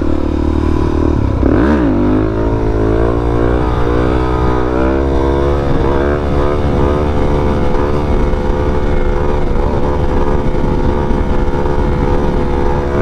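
Motorcycle engine running under way. About a second and a half in, its note drops briefly and comes back up. It then climbs gradually for a few seconds and holds steady.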